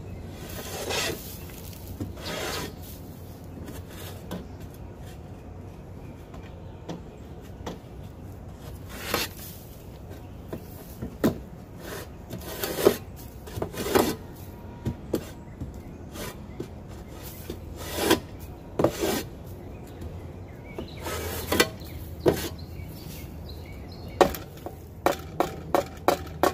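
Flat metal shovel scraping chicken droppings and old bedding off the plywood floor of a nesting box, in irregular strokes, with a quick run of short scrapes near the end.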